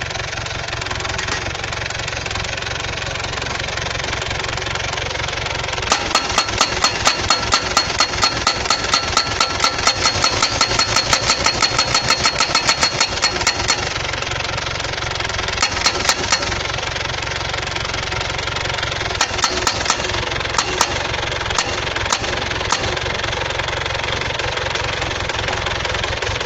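Small pile driver running steadily on its engine, with a long run of rapid, even hammer blows, about four a second, for roughly eight seconds, then a short burst and a few scattered blows.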